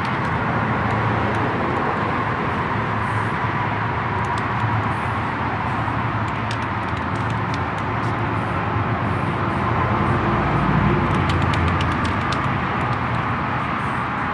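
Steady mechanical running noise with a low hum, swelling slightly about ten seconds in.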